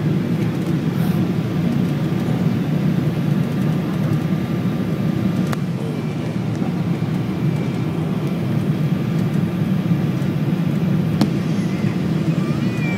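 Airliner noise during landing: a steady low rumble that holds level throughout, with a faint high steady tone above it and two sharp clicks, one about halfway and one near the end.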